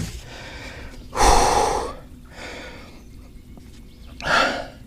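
A man gasping and breathing hard in excitement: a loud breath about a second in, a fainter one soon after, and another loud one near the end.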